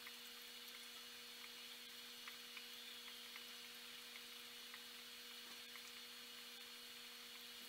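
Faint, steady hum of running aquarium equipment, with scattered soft ticks from the bubbling water.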